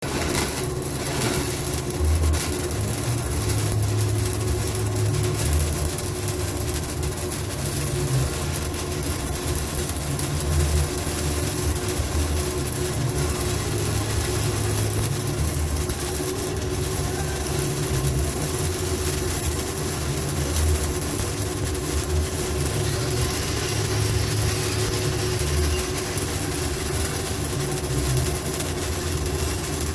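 6010 stick-welding arc crackling and hissing steadily as a vertical-down bead is run, over a steady low hum.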